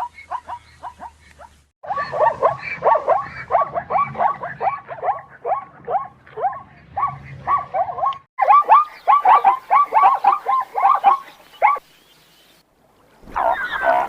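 Zebra barking: rapid trains of short, yelping barks, about four or five a second, each dropping in pitch, in several bursts broken by abrupt cuts. Near the end, after a brief pause, comes a denser tangle of overlapping calls.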